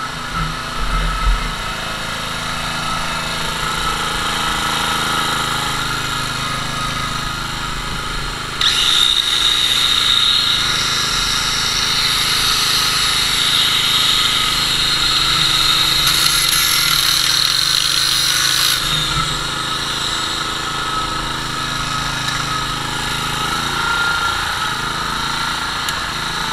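Small gasoline engine of a homebuilt engine-driven welder running steadily. About nine seconds in, an angle grinder powered from it switches on with a high whine. It runs for about ten seconds and then stops, while the engine keeps running.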